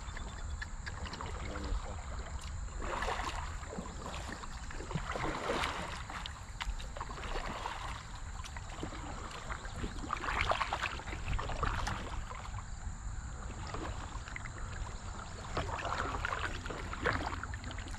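Kayak paddle strokes dipping and splashing in shallow river water, a swell of water noise every few seconds, over a steady low rumble.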